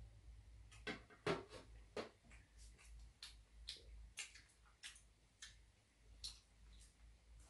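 Faint, irregular clicks and clinks of metal chopsticks against a stainless steel plate and tray, the sharpest a little over a second in.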